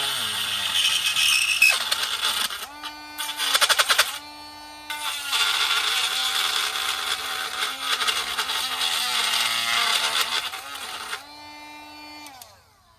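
Dremel rotary tool with a grinding stone, running with a steady high whine and grinding into the plastic smokestack in long spells, with short stretches of the tool running free in between. Near the end it is switched off and winds down, the whine falling in pitch.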